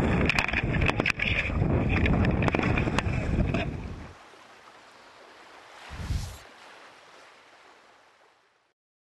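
Wind buffeting the microphone and sea water splashing around paddled kayaks in choppy ocean, with scattered clicks and knocks. About four seconds in it drops to a faint hiss, a single whoosh swells and fades near six seconds in, and the sound then fades out.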